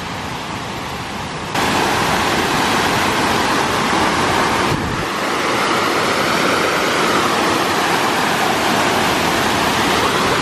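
Rain-swollen jungle stream rushing over a rocky cascade: a steady roar of white water that gets louder about a second and a half in.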